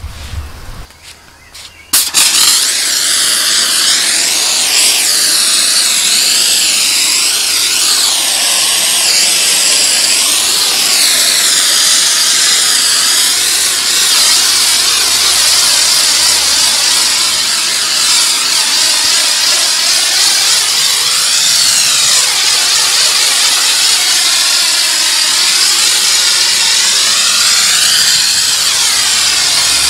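Pressure washer spraying a jet of water onto a car's bodywork: a steady hiss that starts suddenly about two seconds in, its tone shifting back and forth as the jet sweeps across the panels.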